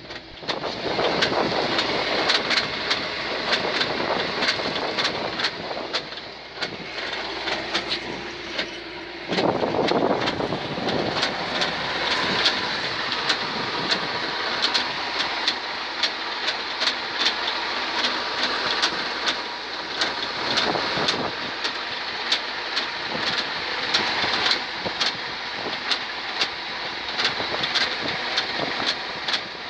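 UAZ-452 'Bukhanka' van's rear axle knocking while the vehicle runs: repeated sharp knocks at irregular intervals over steady engine and road noise, which gets louder about nine seconds in. The owner has not identified the cause of the knock.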